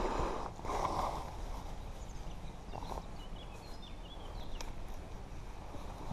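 Steady rush of a shallow, fast river, with a few light clicks and faint bird chirps high above it.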